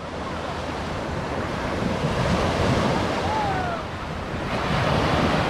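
Sea surf washing in with wind buffeting the microphone; the wash swells louder twice.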